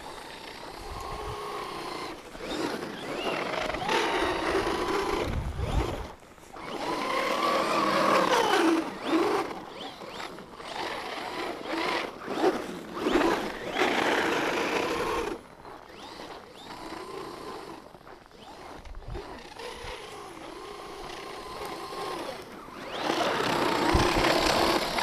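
Traxxas Slash 4x4 RC truck's electric motor whining in surges, its pitch rising and falling with the throttle, over the noise of the tyres churning through snow.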